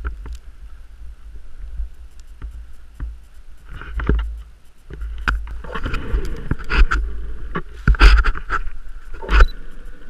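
Blizzard wind buffeting the camera's microphone in a heavy low rumble, with scattered knocks and rustles; the gusts grow louder in the second half.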